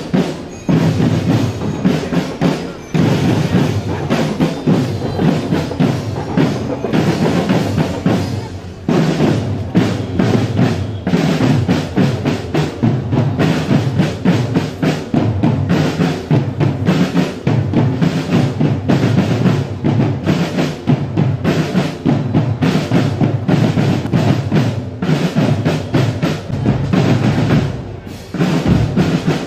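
Marching drum corps percussion playing a fast cadence on snare drums and bass drums, with a brief break near the end.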